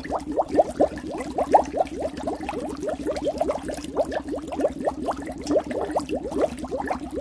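Bubbles bubbling in water: a rapid, continuous stream of short blips, each rising in pitch.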